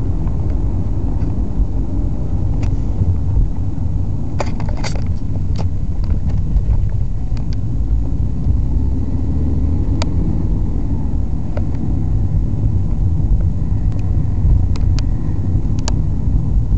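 Car driving, heard from inside the cabin: a steady low rumble of engine and road noise, with a few sharp clicks scattered through it.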